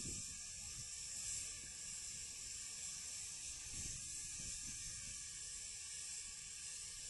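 Steady hiss of steam from a stationary RMI Prairie live-steam miniature locomotive on its first steam-up, with some uneven low rumble underneath. The hiss cuts off sharply at the very end.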